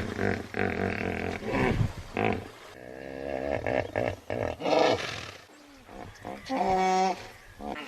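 Hippopotamus calling: a series of deep pitched calls with short pauses between them, ending in a steadier, clearly pitched call near the end.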